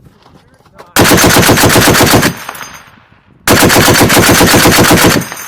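Belt-fed machine gun firing two bursts of automatic fire: the first starts about a second in and lasts over a second, the second follows about a second later and runs nearly two seconds, each trailing off in a fading echo.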